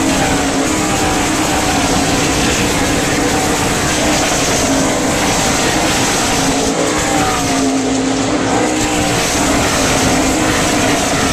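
A field of NASCAR Cup stock cars running at speed, their V8 engines making a loud, continuous drone. Several cars passing at once lay falling engine pitches over one another.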